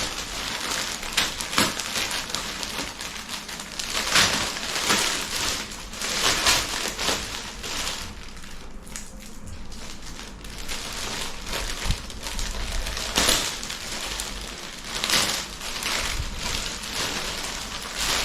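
Gift packaging rustling and crinkling as it is unwrapped by hand, in irregular bursts.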